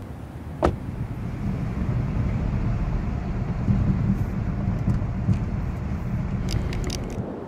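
Car driving, its low road and engine rumble swelling after a sharp click just under a second in, holding steady, then easing off near the end.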